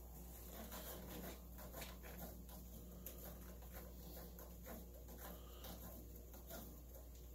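A cat clawing at a wicker scratching post: a faint, irregular run of quick scratches.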